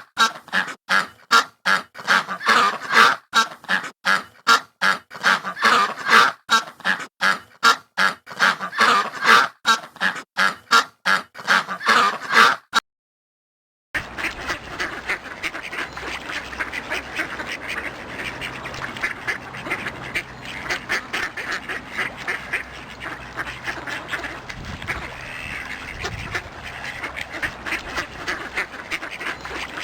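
Ducks quacking: a loud, close run of quacks in quick succession, several a second. After a brief gap about 13 seconds in, a softer flock of ducks quacking and chattering over one another without pause.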